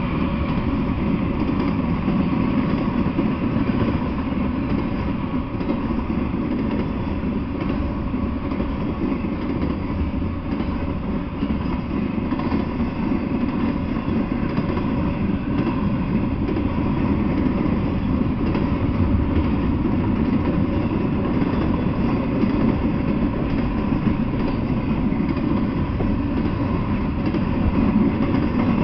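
Double-stack intermodal freight train passing steadily: a continuous low rumble of steel wheels rolling over the rails, with no breaks or changes.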